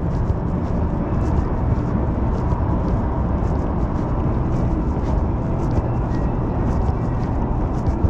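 Las Vegas Monorail train running, heard from inside the car: a steady low rumble with a faint steady tone over it and light scattered ticks.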